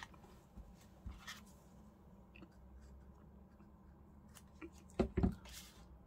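Light rustles and small taps of paper craft pieces being handled on a desk, with a thump about five seconds in.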